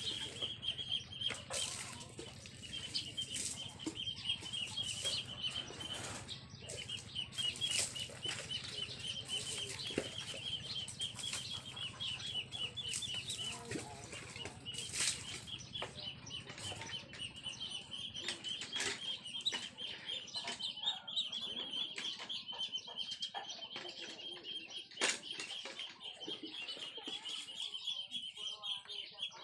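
A bicycle being washed by hand: irregular splashes and rubbing of wet hands on the wheel and frame. Under it runs a continuous high, fast-pulsing trill, with a low hum that fades out about halfway.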